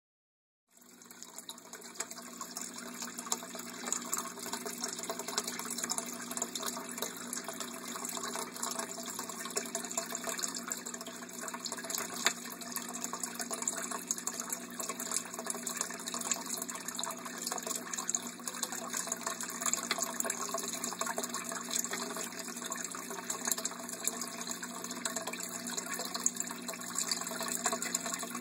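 Aquarium filter pouring water back into the tank: a steady splashing and trickling with a low hum underneath, starting just under a second in.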